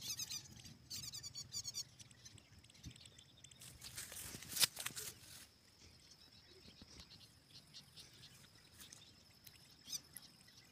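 Bat caught in a quail net giving rapid, high-pitched chittering squeaks in two short bursts within the first two seconds. Grass rustles with handling noise about four seconds in.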